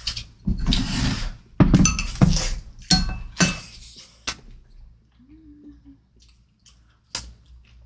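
A string of clinks and knocks from tableware, cutlery and dishes, mixed with eating sounds over the first four seconds, a few of the clinks ringing briefly. A short hummed 'mm' follows about five seconds in.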